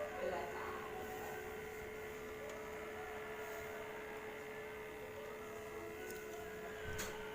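Steady electrical hum over a faint hiss from the powered-up USB Bluetooth audio receiver and its speaker, idling with no audio playing. A short click about seven seconds in.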